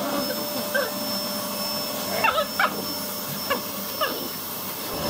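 Vacuum cleaner running with a steady whine while a small Kokoni dog barks at it in about five short, high barks, each falling in pitch.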